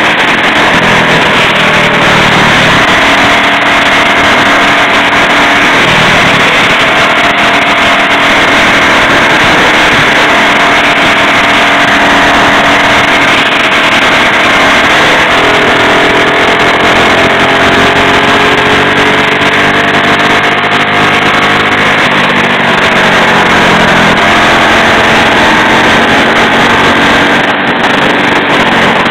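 Mini bike's small engine running at road speed, heard loud and close from the bike. Its pitch steps up and down a few times with throttle over a steady rushing noise.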